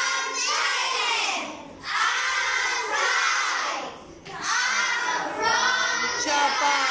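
A class of young children chanting an English sentence together in unison, in a sing-song drill rhythm, as three phrases of about two seconds with short breaks between them.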